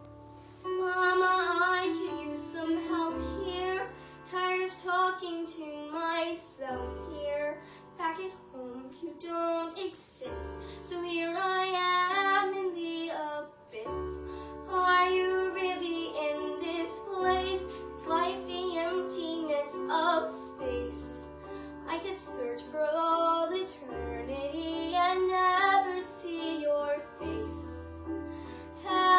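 A young female voice singing a show tune with vibrato over a piano accompaniment, in phrases broken by short pauses.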